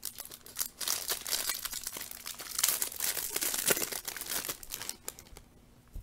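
Clear plastic wrapper crinkling and tearing as a stack of baseball cards is unwrapped by hand, dying away about five seconds in.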